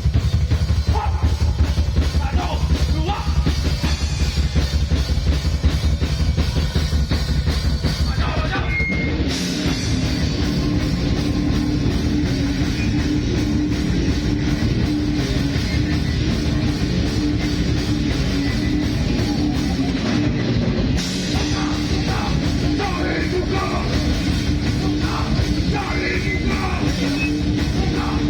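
Live heavy rock band playing loudly, drum kit driving the song. About nine seconds in, the song moves into a new section.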